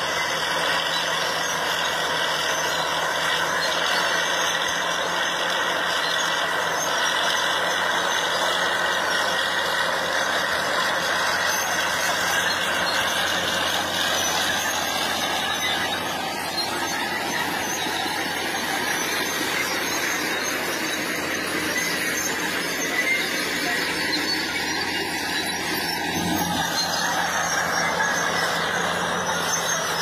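Fiat Allis crawler tractor pulling a deep plough through dry soil: its diesel engine working steadily under load, with a steady high squeal from the tracks and implement over the engine.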